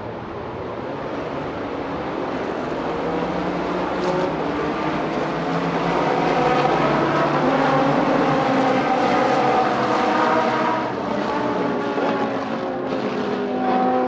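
A pack of GT race cars at speed, many engine notes overlapping at once. The sound swells to its loudest about halfway through, then eases slightly.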